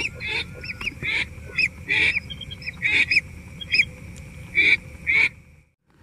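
Lesser whistling ducks (belibis) calling: a quick run of short, whistled notes, about two a second, until the sound cuts off abruptly near the end.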